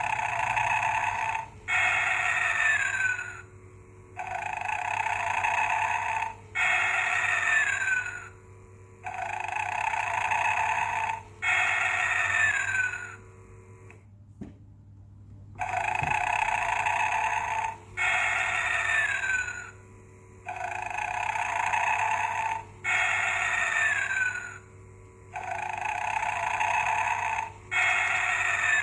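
Gemmy Snoring Santa animatronic (1995) playing its recorded snoring: six cycles of a long snore followed by a shorter one that ends in a falling whistle, one cycle about every five seconds, with a break and a click about halfway through. The faint steady hum of the motor that moves the figure runs underneath.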